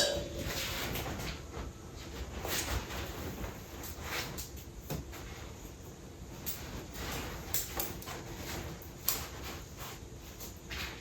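A sharp knock at the start, followed by irregular rustling and light clicks and knocks.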